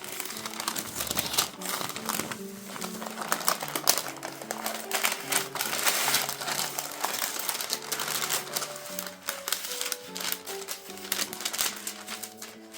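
Background music with a slow melody, over frequent light clicks, taps and rustling from hands handling things close by.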